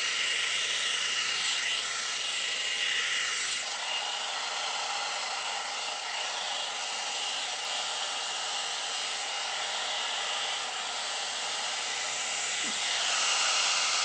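Amika blow dryer brush (hot-air round brush) running: a steady rush of air with a thin, high, steady whine. The motor's note shifts slightly about four seconds in.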